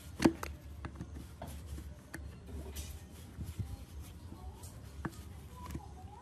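Scattered clicks and knocks of a gloved hand working a metal plate loose inside an old Husqvarna chainsaw's grimy housing, with one sharper knock just after the start.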